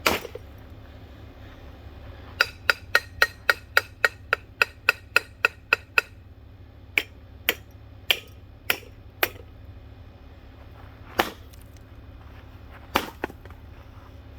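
A ceiling fan being smashed, struck over and over with sharp blows. There is one hit at the start, then a quick run of about four blows a second for several seconds, then slower single blows with pauses between them.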